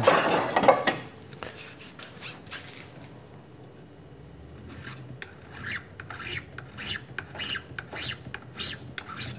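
A hand file scraping across a thin aluminium shim in short strokes, most of them in the second half, flattening a small lump left on its milled surface. A toolbox drawer clatters about the first second.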